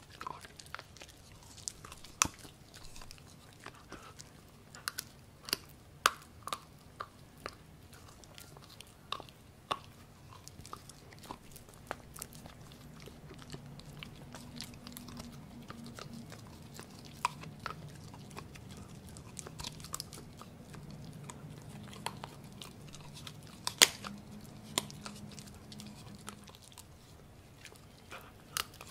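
A Pomsky puppy (Husky–Pomeranian cross) chewing and gnawing a piece of pork: irregular crunching clicks, with a few louder cracks.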